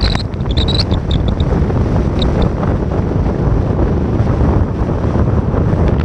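Strong wind buffeting a phone's microphone: a loud, uneven low rumble, with a few brief higher flickers in the first second or two.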